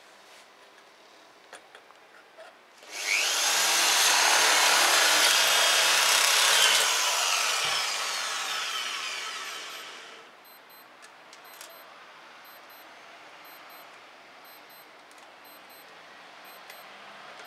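Hand-held electric power tool working an aluminium window profile: it whines up to speed about three seconds in, runs loud for several seconds, then winds down and stops about ten seconds in.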